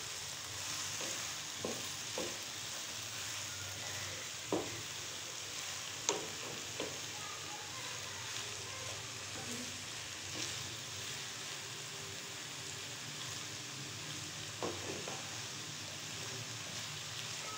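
Diced gourd and tomatoes frying in oil in a non-stick pan, a steady soft sizzle, while a wooden spatula stirs them, with a few light knocks of the spatula against the pan.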